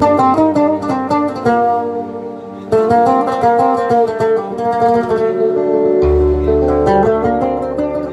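Oud plucked in a quick melodic line, backed by held electronic-keyboard notes and light hand-drum beats. The whole ensemble gets louder about three seconds in, and a deep held bass note joins about six seconds in.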